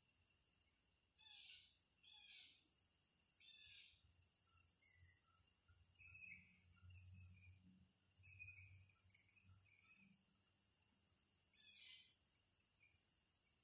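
Faint field ambience, near silence: a high insect buzz that stops and starts, with a few short bird chirps, several in the first few seconds and one near the end.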